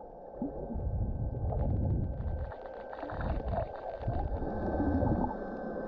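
Muffled underwater rumble of water moving over a hand-held GoPro's housing as the diver swims. It swells twice, with scattered faint clicks.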